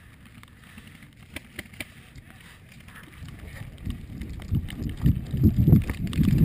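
Low rumbling wind and handling noise on a GoPro's microphone, growing louder about three seconds in and coming in uneven pulses, with a few faint clicks before it.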